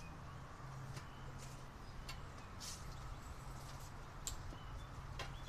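Faint handling noise from a cardboard box being pushed and adjusted by gloved hands: a few soft taps and scrapes, with faint bird chirps and a low hum in the background.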